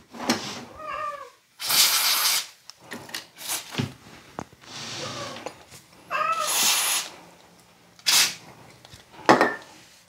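A cat meowing, with a short arched call about a second in and another about six seconds in. Two hissing bursts of about a second each and a few sharp clicks come in between.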